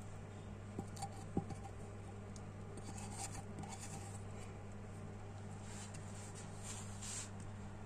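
Soft scraping and rubbing of a utensil spreading a thick chocolate-Nutella layer over a cream layer in a cake pan, over a steady low hum. A brief light knock comes about a second and a half in.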